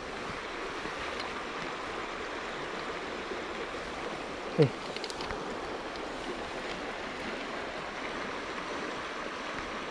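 Creek water running steadily over a shallow gravel riffle. About halfway through, a person gives one short falling vocal sound.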